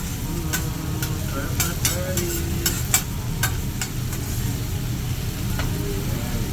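Food sizzling on a hot teppanyaki griddle, with frequent sharp clicks and scrapes of metal spatulas on the plate, over a steady low rumble.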